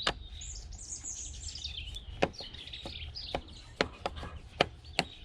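Sharp, irregular clicks and taps of a hand screwdriver working screws out of a plastic alarm clock case. Birds chirp in the background during the first half.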